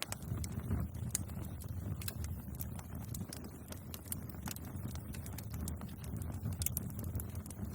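Bonfire crackling: irregular sharp pops and snaps of burning wood, several a second, over a low steady rumble of the flames.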